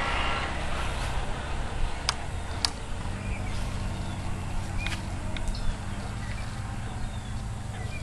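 Motorcycle engine idling with a steady low hum, with two sharp clicks about two seconds in.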